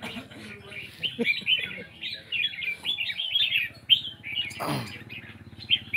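Many small caged birds chirping and tweeting in quick, overlapping calls, with one brief sweep falling in pitch about three-quarters of the way through.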